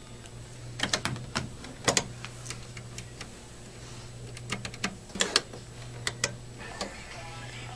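Scattered sharp clicks and taps of buttons and keys being pressed on studio equipment, coming irregularly in small clusters, over a steady low electrical hum.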